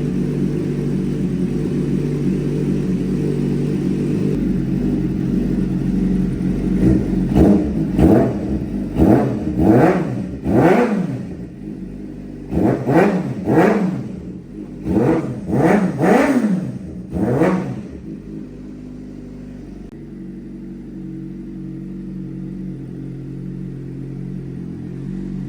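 Motorcycle engine idling, then revved in a string of about ten quick throttle blips that rise and fall in pitch, before settling back to a quieter idle.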